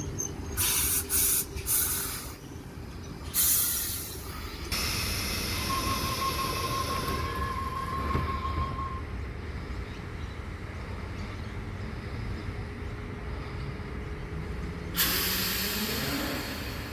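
Electric suburban train standing at a platform: several sharp hisses of air, then a rapid beeping warning tone lasting a few seconds. Near the end comes another burst of air and a low whine rising in pitch as the train starts to move off.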